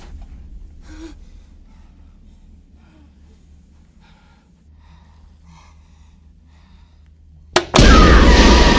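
Faint, tense breathing over a low, steady rumbling drone, then about seven and a half seconds in a sharp crack followed at once by a very loud horror-film stinger hit that keeps ringing.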